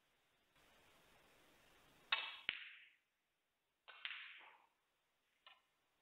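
Snooker balls clicking during a shot: a sharp click of the cue striking the cue ball about two seconds in, followed at once by a louder ball-on-ball click. Further clicks of balls meeting follow near four seconds and five and a half seconds, each with a short ringing tail.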